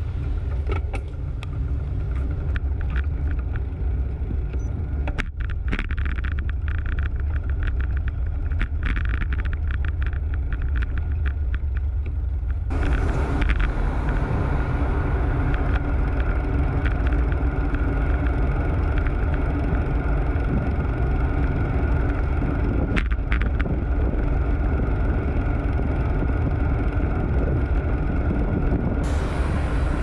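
Wind buffeting the microphone of a handlebar-mounted GoPro on a moving road bike, a steady low rumble mixed with tyre and road noise. Light clicks and rattles come and go in the first dozen seconds, then the wind rush grows louder about 13 seconds in and stays there.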